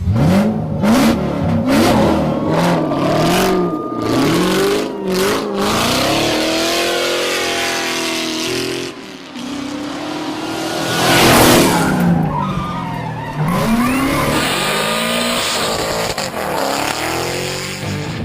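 Motorcycle engines revving up and down again and again, with bursts of tyre skidding as the bikes drift; the loudest screech of rubber comes about eleven seconds in.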